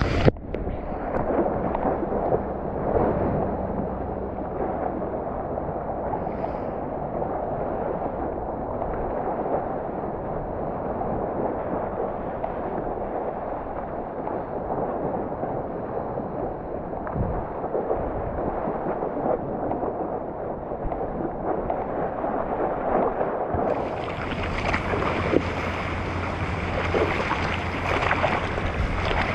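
Seawater sloshing and lapping around a GoPro held at water level in the surf. It sounds muffled for most of the stretch and turns brighter and hissier near the end.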